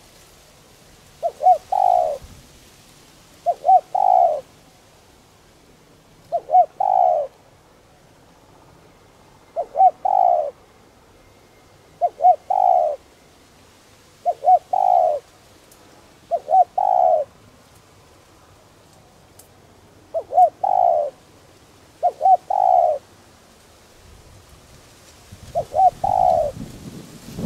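Spotted dove cooing. It repeats a call of two or three short, quick notes followed by a longer note, about every two to three seconds, ten times in all.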